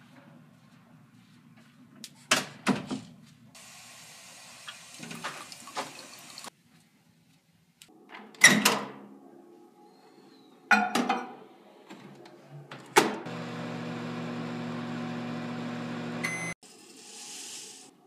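A microwave oven door shuts with a knock, then the microwave runs with a steady hum for about three and a half seconds and stops suddenly. Before that there are several loud knocks and bangs and a few seconds of steady hiss.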